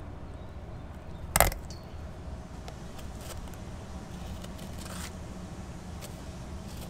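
An 8-inch Dexter fillet knife slicing a redfish fillet away from the backbone and rib bones, with faint scraping and light ticks as the blade works along the bones. One sharp click about a second and a half in stands out above the rest.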